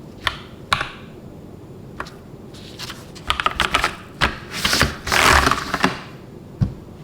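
Keys pressed on an AKKO 3098B mechanical keyboard: a few single clicks, then a fast run of keystrokes from about three seconds in, ending with one last press near the end.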